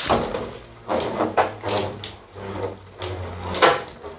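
A Spriggan Requiem Beyblade launched from a ripcord launcher into a plastic stadium, then clashing again and again with a spinning Fafnir top: sharp clacks every half second or so over a steady whir of the spinning tops.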